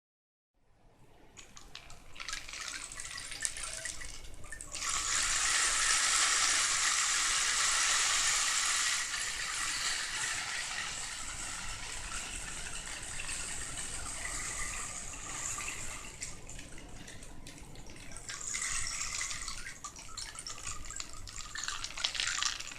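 Rain stick being tipped, its pellets falling through the tube in a dense hiss of many tiny ticks. The hiss grows louder about five seconds in, runs on more evenly, swells again near the end and then runs out.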